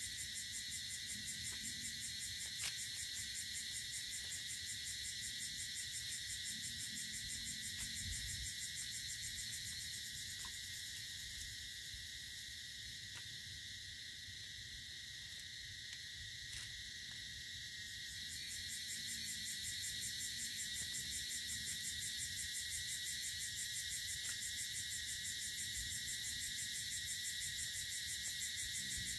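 Dense evening chorus of insects: a steady high-pitched, rapidly pulsing trill that eases off for several seconds in the middle and then swells back. A few faint clicks are heard over it.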